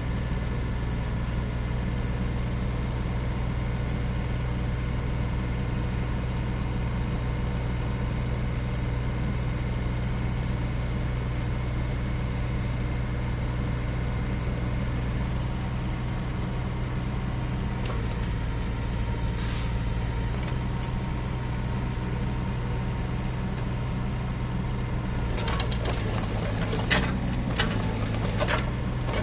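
Diesel engine of a Bobcat E08 mini-excavator running steadily. A brief hiss comes about two-thirds of the way through, and a few sharp clicks and knocks near the end.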